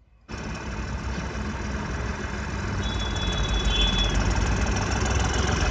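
A vehicle engine running steadily, cutting in suddenly just after the start and growing slightly louder. A brief high, steady whistle-like tone sounds about three seconds in.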